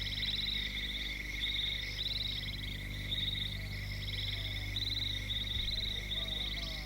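Night chorus of frogs: short trilled calls repeating every half second to a second over a steady high drone.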